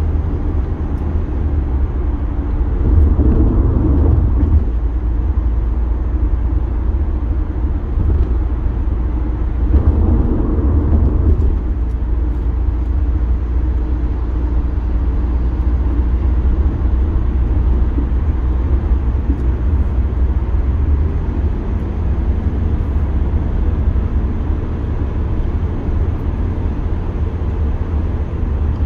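Car driving at highway speed, heard from inside the cabin: a steady low rumble of tyre and engine noise that swells briefly twice.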